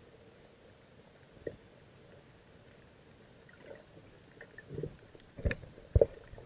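Muffled underwater knocks and thumps as the camera is moved about against the poles and netting of a bamboo-and-net fish trap. A faint low hum is all that is heard for the first few seconds, then scattered knocks, and two loud thumps about half a second apart near the end.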